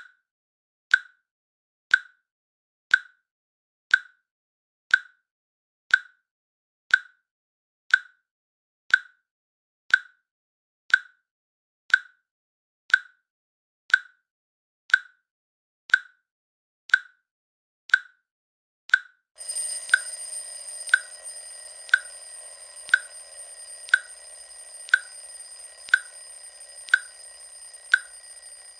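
Countdown timer's click sound, one sharp click each second. About two-thirds of the way through, the timer reaches zero and its alarm starts, sounding steadily while the clicks go on underneath.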